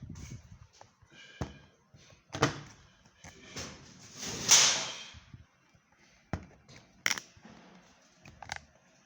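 Washing machine parts being handled: scattered knocks and clunks of plastic and metal, with a loud rasping noise lasting about a second near the middle.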